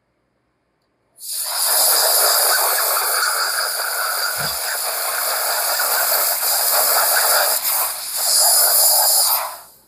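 Spotting-board steam gun blowing a steady jet of steam onto a garment to flush out a Sharpie ink stain. The hiss starts about a second in, eases briefly near the end, then fades.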